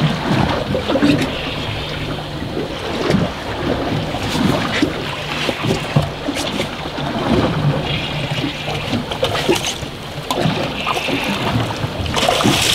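Wind and sea water washing against the hull of a drifting boat, with a low hum that comes and goes and a few sharp knocks.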